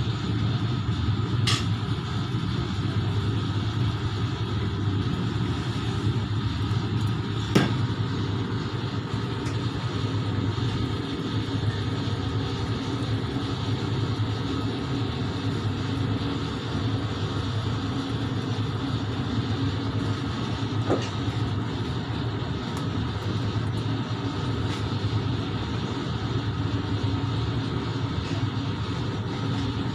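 Steady mechanical hum of kitchen equipment running, with a few light clicks and knocks, the sharpest about seven and a half seconds in.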